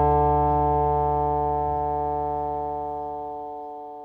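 Background music: one held chord slowly fading out.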